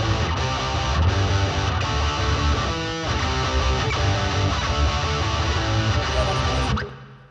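Rhythm guitar played alone, strumming chords through the PA for a line check, ringing out and cut off sharply about seven seconds in.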